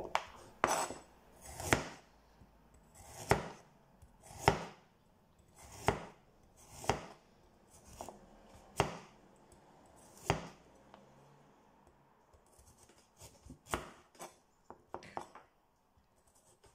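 A kitchen knife slicing a raw carrot into rounds, each cut ending in a sharp knock of the blade on a plastic chopping board. The cuts come slowly, about one every second or so, then a few lighter, quicker taps near the end.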